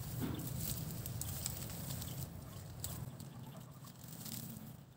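Wind buffeting the microphone as an uneven low rumble, with scattered faint clicks and rustles; it eases off near the end.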